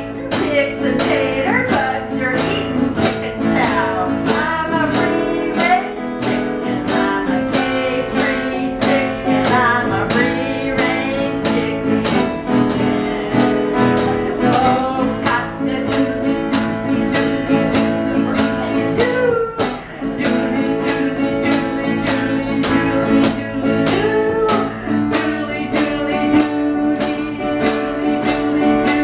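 Live band music: guitar and drum kit playing a song together, the drums keeping an even beat.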